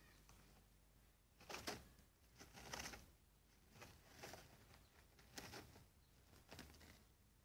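A guinea pig shuffling in wood-shaving bedding: a few short, faint rustles spaced irregularly.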